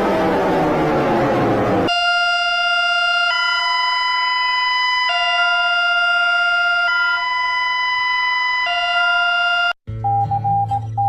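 Emergency alert alarm sounds: a siren-like wail slides down in pitch. About two seconds in, a steady two-tone alarm begins, switching between a lower and a higher pitch roughly every second and a half. Near the end it cuts off abruptly and a different, beeping alarm tone starts.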